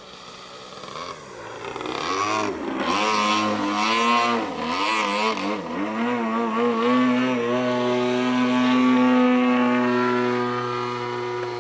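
Engine of a Corvus radio-controlled aerobatic model plane running on the ground with its propeller turning. It gets louder about two seconds in as the throttle is worked up and down a few times, then holds steady at a higher setting.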